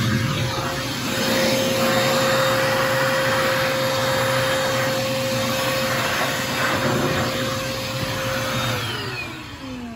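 A 1.5-gallon, 2-horsepower wet/dry shop vac running with a steady whine over the rush of air being sucked in. Near the end it is switched off, and its whine falls in pitch as the motor spins down.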